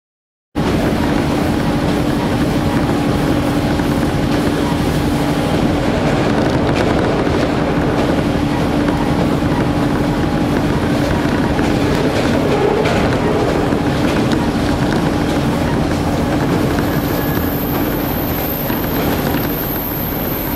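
Cabin noise inside a JNR-era KiHa 40-series diesel railcar under way: a steady diesel engine hum and the running noise of wheels on rail, starting abruptly about half a second in. A thin high whine joins near the end.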